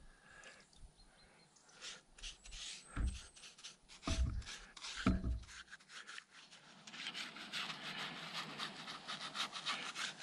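Thin wood oil being scrubbed into sanded log walls: repeated rubbing strokes on rough wood, growing faster and steadier from about seven seconds in. A few dull knocks come between about three and five seconds.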